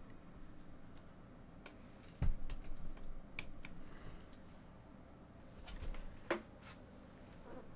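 Scattered light clicks and taps of small objects being handled on a desk, with a dull knock about two seconds in and a few more clicks around six seconds in.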